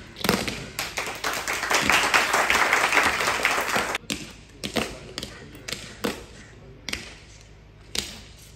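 Soldiers' boots stamping on paving stones in a high-kicking parade march, in single hard stomps about a second apart. A denser stretch of clatter and crowd noise runs from about 1.5 to 4 seconds in.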